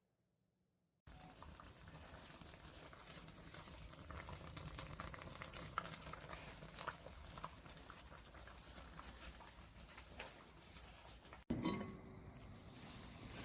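Faint bubbling with scattered little crackles, of food cooking. It starts about a second in and cuts off suddenly near the end, where a brief knock follows.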